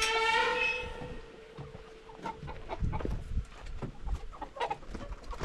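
A young chicken yelling as it is lifted off the roost: one loud, steady distress squawk about a second long, its last note trailing off faintly, followed by scattered clicks and rustles.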